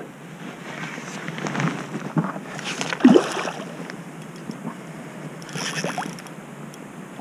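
A hooked fish splashing and thrashing at the water's surface beside a canoe while it is reeled in: several irregular splashes, the loudest about three seconds in.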